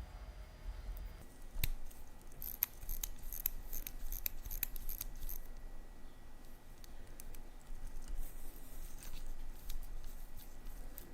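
Small, sharp metallic clicks and light tinkling taps of watchmaker's tools on the parts of a vintage Rolex watch, in irregular runs, with one louder click about a second and a half in.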